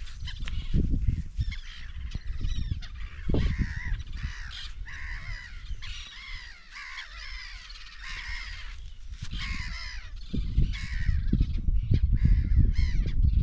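Crows cawing over and over, many short harsh calls in quick succession, over a loud, uneven low rumble that swells near the end.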